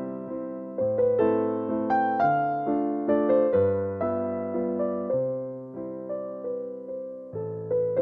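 Background music: solo piano playing a slow melody over chords, each note struck and fading away.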